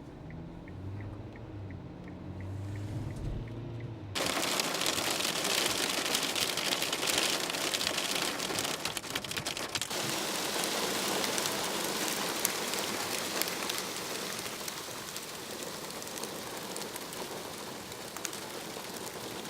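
A vehicle's low hum with a quick regular ticking, then an abrupt change about four seconds in to loud, dense windstorm noise: a steady hiss of wind and rain with crackling spatter on the microphone.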